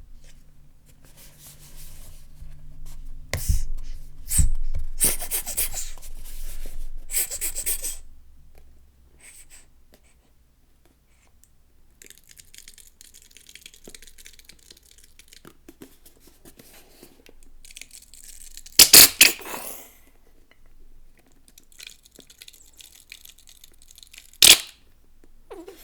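Plastic shower gel bottle being squeezed in bursts, the gel squelching and sputtering out and the plastic crackling. Several sharp clicks; the loudest come about three-quarters through and near the end.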